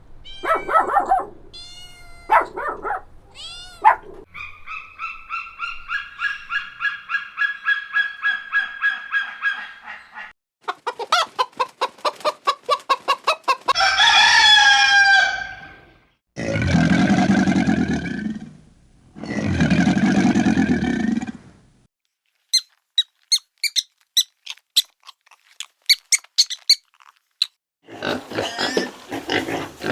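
A run of farm poultry calls one after another: chickens clucking and a cock crowing, with two long honking calls a little past the middle and short sharp calls after them.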